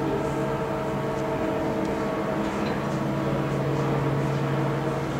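Steady machinery hum aboard the cruise liner Queen Mary 2: several steady low tones over a hiss, unchanging throughout.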